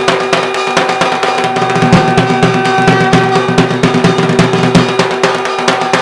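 Dhak drumming in a fast, dense rhythm, with a melody instrument holding long steady notes over it.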